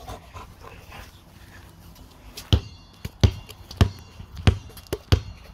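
A basketball being dribbled, bouncing on hard ground. Five sharp bounces in a steady rhythm, about one every two-thirds of a second, start about halfway through.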